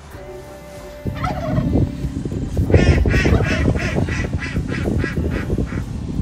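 A fowl giving a quick run of about ten harsh, evenly spaced calls that fade toward the end. Under the calls is a loud, crackly rustle that starts about a second in.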